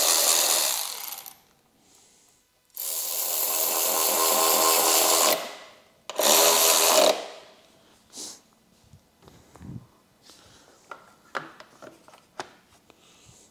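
Cordless power driver running bolts down into a motorcycle battery tray in three short runs, the last one the shortest. Near the end come a few light clicks and taps of tools and parts being handled.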